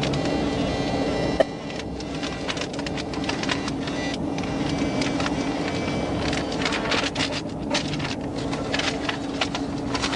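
A steady low hum, like a car idling, under rapid, irregular mechanical clicking and chatter, with one sharp click about one and a half seconds in.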